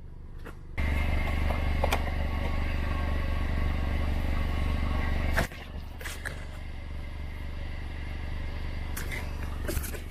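Air compressor running to inflate a freshly plugged tire: a loud steady motor hum switches on about a second in and cuts off suddenly about halfway, leaving a quieter steady hum with a few sharp clicks.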